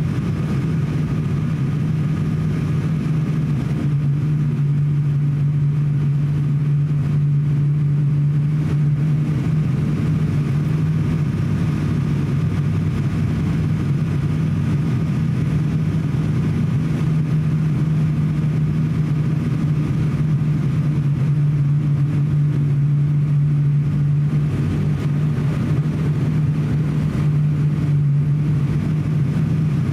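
ATR 42-600 turboprop's engines and propellers droning inside the cabin on final approach: a steady low hum that grows a little stronger about four seconds in.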